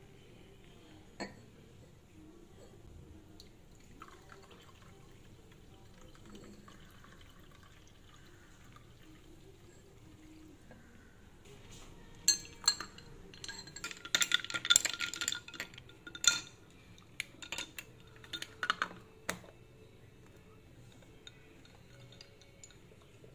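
Faint pouring as whisked matcha is tipped from a ceramic bowl into a glass of oat milk. About halfway through, a long stirrer stirs the latte in a tall glass, clinking and rattling against the glass for several seconds.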